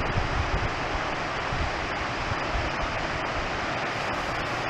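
Steady rush of a shallow creek flowing over rocks, with some low wind rumble on the microphone.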